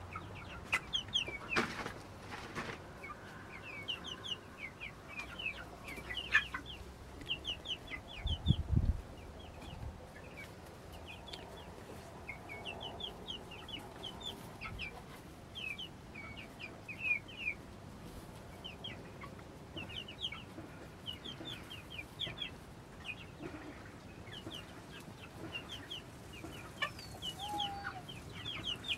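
Chickens calling in the coop: soft clucking and short high calls in quick runs, on and off throughout. A low thud about eight seconds in.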